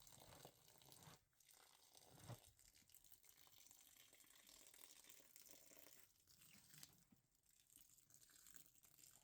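Near silence: faint scattered rustling and small knocks, with one slightly louder soft thump about two seconds in.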